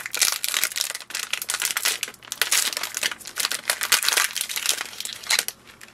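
Foil packet of a printer ink cartridge being torn open and crinkled by hand: a dense crackling that fades out near the end.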